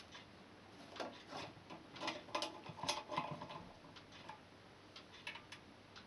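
Screwdriver turning the lid screw out of a Logic 4 alarm panel's metal case: faint scraping clicks and ticks, with a few sharper ticks near the end.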